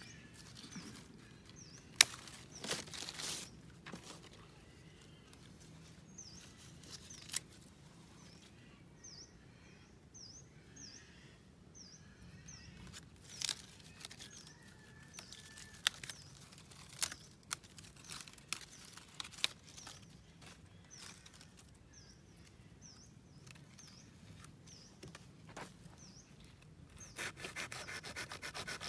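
A small knife cutting and snapping at the roots and shoots of a lộc vừng (Barringtonia) bonsai stump: scattered sharp clicks and snaps with some rustling. About 27 seconds in, a fast, even rasping of the blade on the wood begins.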